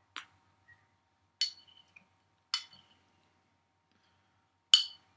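Four sharp clinks spaced unevenly, the last the loudest, each with a brief high ringing, over a faint steady hum.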